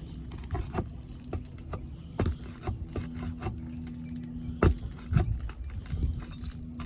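Roofing nails being pried out of asphalt shingles: a run of irregular light clicks, taps and scrapes of metal tools on the shingles, with one sharper knock about two-thirds of the way through.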